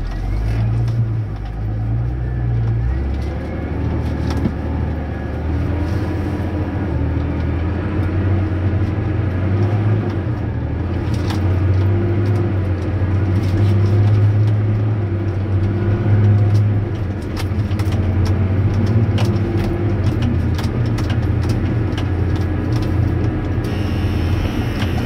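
Massey Ferguson 6480 tractor's diesel engine running steadily at road speed, heard from inside the cab, its note wavering slightly, with scattered clicks and rattles.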